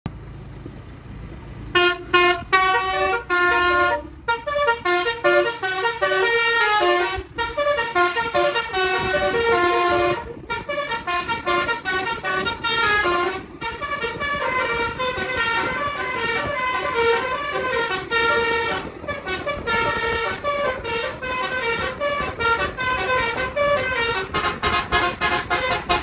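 Tour bus's basuri musical air horn playing a fast melody of rapidly changing notes, with brief pauses between phrases, starting about two seconds in after a low rumble.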